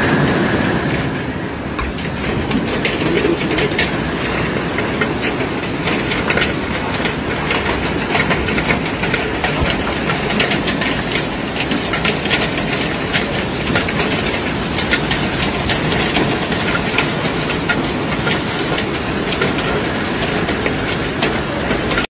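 Heavy hail and rain pelting parked cars and pavement: a loud steady roar of precipitation, full of dense sharp clicks of hailstones striking.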